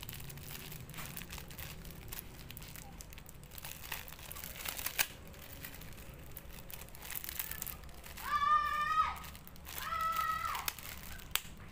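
Thin clear plastic bag crinkling as it is handled and worked over a coconut sprout's shoot, with a sharp click about five seconds in. Two short high-pitched calls, each held on one note, come later, about a second apart.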